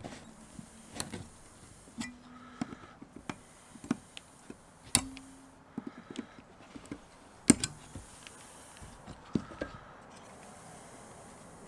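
Irregular clicks and knocks of tools and parts being handled while a lithium-ion power-tool battery pack is taken apart, with two louder knocks about 5 and 7.5 seconds in.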